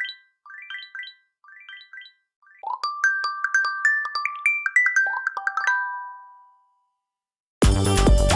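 Nokia T26 tablet's preset alert tones: a short bell-like chime figure repeating about once a second and growing fainter, then a quick melody of bright mallet-like notes lasting about four seconds. About a second after that melody ends, a loud full ringtone with a steady beat begins.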